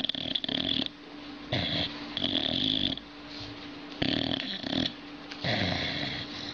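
Boxer dog snoring in its sleep, a snore with each breath, about four in a row at a slow, even pace.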